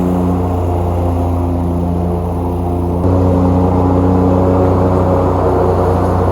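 Exmark Lazer Z 72-inch zero-turn mower running steadily at mowing speed, a constant engine drone, with the level stepping up suddenly about three seconds in. Background music with sustained, gong-like tones may be mixed in.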